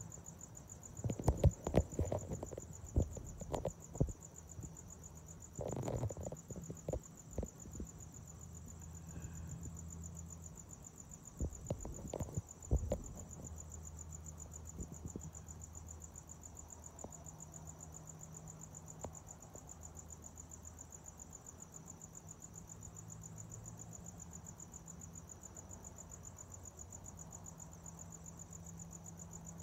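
Crickets chirping in a steady, high, pulsing trill, with a series of knocks and bumps in the first dozen seconds, the loudest of them about a second in and around six and twelve seconds in.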